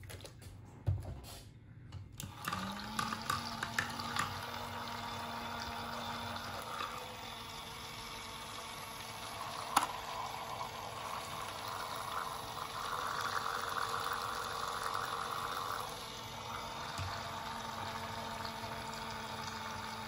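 A miniature makeup-brush washing machine running with a rinse load of water: its small motor starts about two seconds in with a steady hum and keeps the water swishing and churning in the tub.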